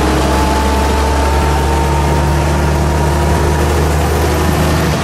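1919 Pierce-Arrow Model 51's three-block six-cylinder dual-valve 525 cubic-inch engine running under way, pulling the car along the road, its pitch rising slowly as the car gathers speed.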